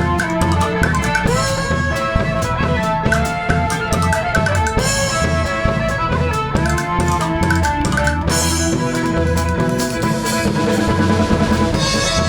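Live band playing an instrumental passage of an Irish folk song, with a drum kit keeping a steady beat under a sustained melody line.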